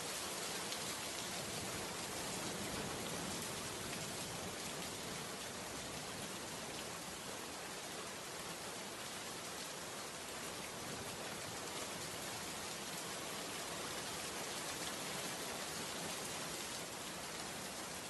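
Steady, even hiss that does not change, with no distinct knocks or rubbing strokes standing out.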